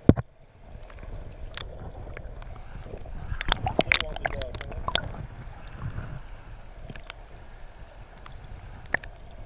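Water sloshing and gurgling around an action camera held underwater in a rocky river, heard muffled through the housing, with scattered sharp knocks and clicks: one loud knock right at the start and a cluster of clicks around four seconds in.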